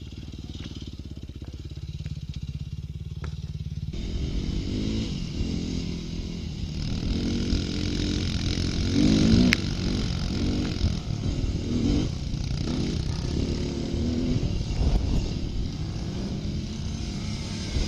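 GasGas EC 300F enduro bike engine heard from the bike: idling steadily for about four seconds, then, after an abrupt change, under way with the revs rising and falling again and again. A single sharp click comes about halfway through.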